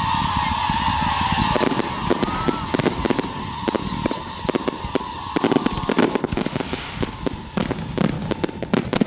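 Fireworks display: a held whistle-like tone fades over the first second and a half, then a rapid, dense crackle of sharp pops and bangs runs on.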